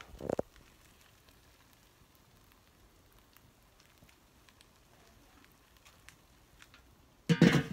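Chickens sizzling faintly over hot charcoal on a kettle grill, with scattered small crackles and ticks. A brief knock comes just after the start, and a loud short noise comes near the end.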